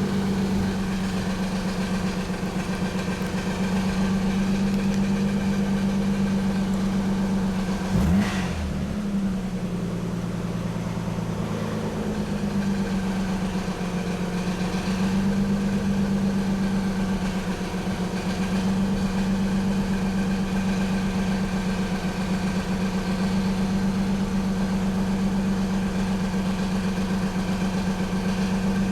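1991 Nissan 300ZX's 3.0-litre V6 idling with a steady noise that comes from a collapsed timing belt tensioner letting the belt run slack, and from worn upper and lower idler pulleys. About eight seconds in there is a brief knock and the engine note wavers for a moment.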